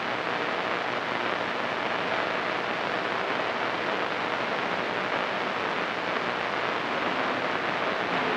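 CB radio receiver hissing with steady static through its speaker, squelch open between transmissions.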